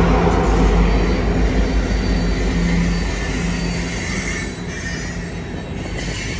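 EMD SD70ACe diesel locomotives pass close by, their engine drone strong at first and fading after about three seconds. Loaded coal cars follow, their steel wheels rolling and clattering on the rails.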